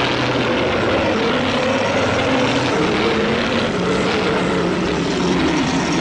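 A sound effect from the 1984 Godzilla film: a loud, steady rushing noise with a low drone that wavers slowly up and down in pitch, lasting about eight seconds.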